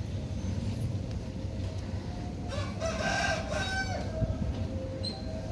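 A rooster crowing once, about halfway through, one call lasting about a second and a half.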